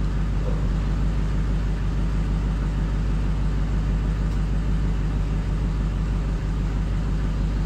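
Steady low rumble and hum, heard through a phone's microphone.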